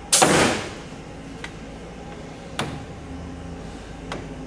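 Router carriage and hinge block on a door-hinge routing machine being slid and set along the index bar. A loud, short rush of sliding noise comes just after the start, then three light clicks spread about a second and a half apart.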